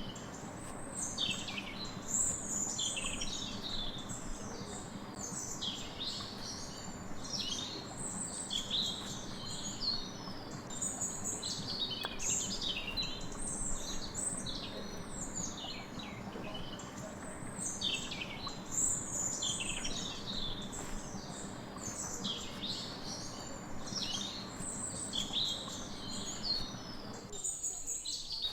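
Many small birds chirping and twittering continuously, over a steady low hum that stops about a second before the end.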